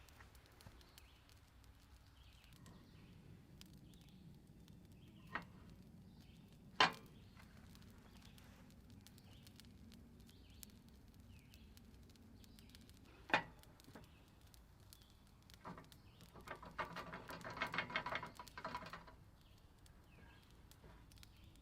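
Three sharp, spaced-out knocks of a cast-iron waffle iron being handled on the stove, over a faint low hum. Near the end come a couple of seconds of rapid scratching or rattling.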